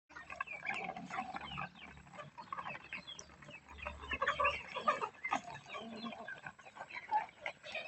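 A group of domestic fowl calling, many short overlapping clucks and squawks in a steady jumble.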